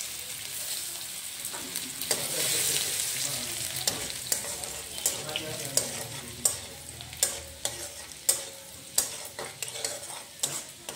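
Chopped garlic sizzling in hot oil in a kadai, loudest at the start and easing off. From about four seconds in, a spatula stirs it, clicking and scraping against the pan several times a second.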